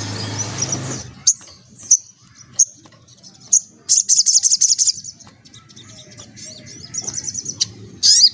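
A spiderhunter (sogok ontong) calling: sharp single high chirps, then rapid high chattering trills twice and a loud sharp call near the end. A low steady hum stops about a second in.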